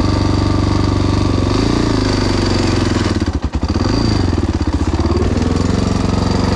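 Motorcycle engine running close by, revved up briefly a few times, with a short dip in loudness about halfway through.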